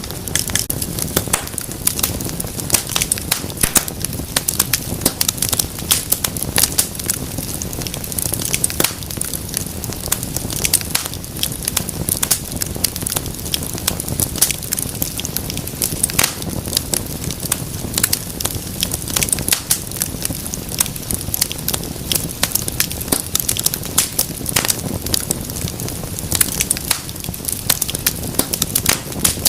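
Wood fire burning in a fireplace: dense, irregular crackling and popping of burning logs over a steady low rumble of flame.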